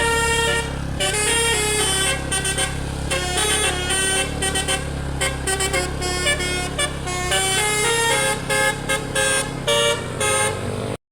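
Telolet musical air horn (DAV Musical Airhorn) playing a fast 'basuri' melody of stepping horn notes over a steady low engine hum, cutting off suddenly near the end.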